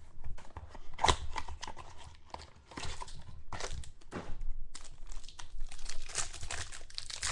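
Crinkling and rustling of trading-card packaging and cards being handled, in irregular bursts.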